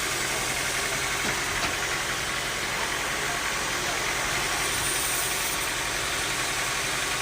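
Sawmill machinery running steadily: a constant engine-like hum with a faint high whine over it.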